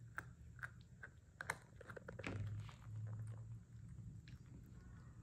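A puppy gnawing a chew stick: irregular crunches and clicks of teeth on the chew, several in the first two seconds. A low hum comes in twice around the middle.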